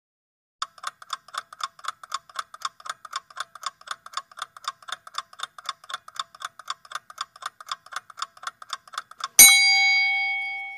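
Countdown-timer clock ticking sound effect, fast and even at about four to five ticks a second, starting about half a second in. Near the end a single loud bell ding rings out, marking that the time to answer is up, and is cut off while still ringing.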